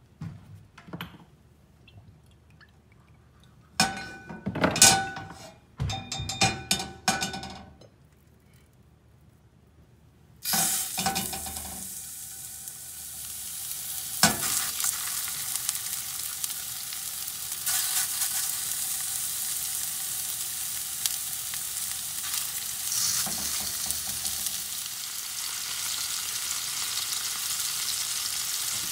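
A few ringing metallic clinks, then, about a third of the way in, raw pork patties go into a hot carbon-steel pan and start sizzling. The sizzle runs on steadily as they fry.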